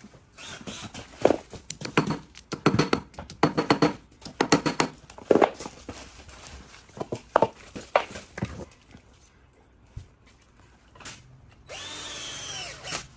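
A string of short, sharp, irregular bursts of tool noise at the wall, then near the end a cordless drill-driver whirring for about a second and a half, its pitch rising and falling as it drives a screw into a plastic surface switch box.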